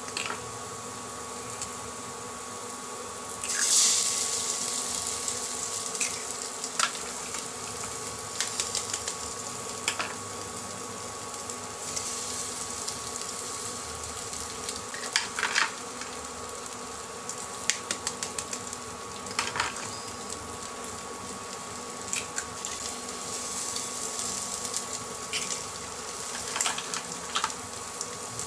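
Induction cooktop buzzing steadily with a high electrical hum, while eggs are cracked one by one against a pan: sharp taps of eggshell come now and then, and there is a short hiss about four seconds in.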